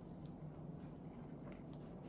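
Quiet steady low hum of room tone, with a few faint crinkles of a plastic rice-ball wrapper being picked up near the end.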